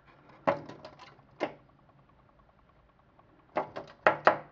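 Chickadee thumping against window glass: a few sharp knocks in the first second and a half, then another quick run of knocks near the end.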